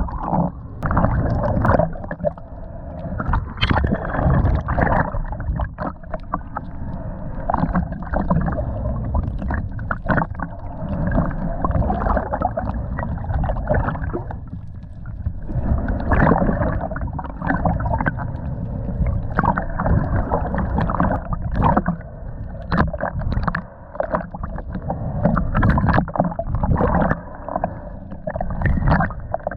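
Muffled water sounds, sloshing and gurgling, with frequent short clicks and knocks.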